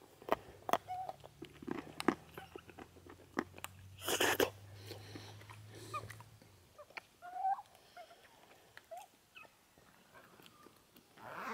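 Australian magpies foraging on bare ground: scattered small ticks and crunches from pecking, with a few short soft calls. A low steady hum runs through the first half and stops, and a brief rushing noise comes about four seconds in.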